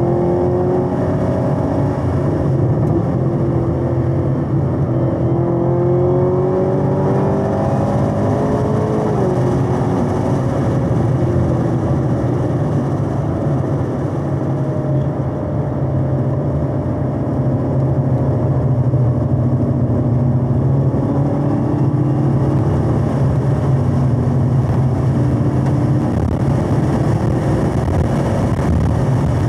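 Supercharged 6.2-litre LT4 V8 of a 2021 Camaro ZL1 1LE under hard track driving, heard from inside the car. Its pitch rises and falls as the car accelerates, shifts and brakes, with a sharp drop about nine seconds in. Underneath runs a steady low drone.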